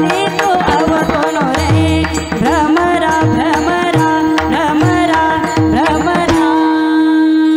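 Devotional kirtan singing by a woman, with gliding ornamented phrases over a steady drone, accompanied by deep, regular pakhavaj strokes. About six seconds in the drumming stops and a long held note carries on.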